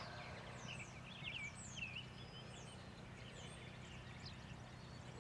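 Wild birds singing, a run of short high chirps and whistled notes, some sliding down and some hooking up, repeated throughout over a faint steady low hum.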